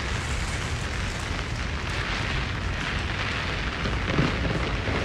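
Steady rain with wind rumbling on the phone's microphone, and a short low thump about four seconds in.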